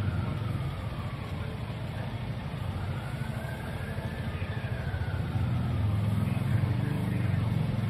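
Vehicle engine idling steadily, growing louder about five seconds in, with a siren wailing faintly, its pitch slowly rising and falling.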